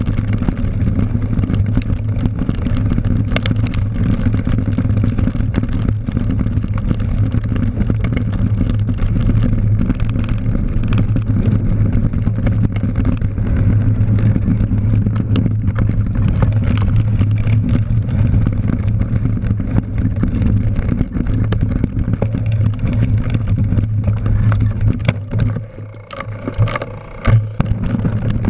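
Cyclocross bike riding fast over dirt and grass: steady wind buffeting and tyre rumble at the mounted camera, with scattered rattles and knocks from bumps. The noise dips briefly near the end.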